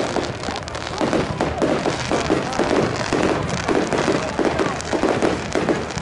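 Display fireworks bursting overhead, a rapid run of bangs and crackles with no break between them.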